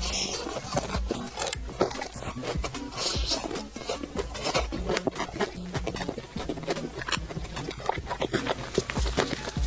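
Close-miked eating sounds: chewing with many short wet clicks and smacks, over quiet background music.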